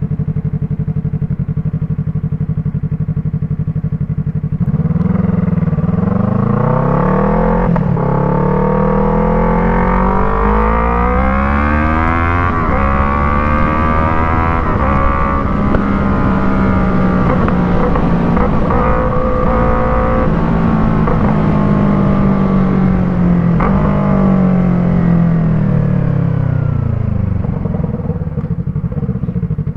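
Yamaha MT-03's parallel-twin engine through an Arashi exhaust with a dB killer fitted, ticking over steadily, then accelerating about five seconds in, rising in pitch through several gear changes. Near the end it slows back down with falling revs.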